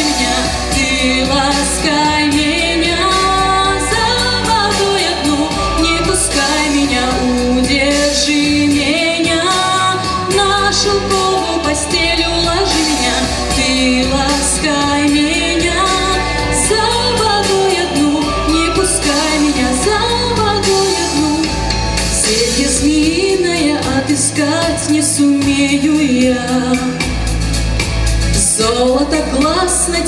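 A woman singing a Russian pop song live into a microphone over a backing track with a steady beat.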